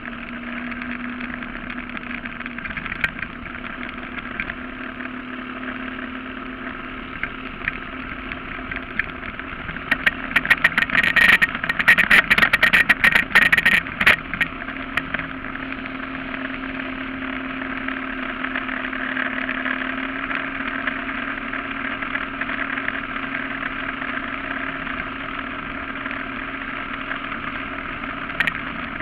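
Surface-drive mud motor running steadily at speed on a flat-bottom boat. From about ten seconds in, a few seconds of loud crackling knocks stand out over the engine.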